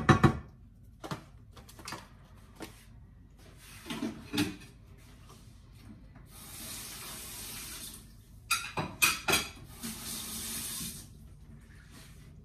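Kitchen tap running for about two seconds, a few clattering knocks of dishes, then the tap running again for about a second. Sharp clacks of a utensil on the pan near the start.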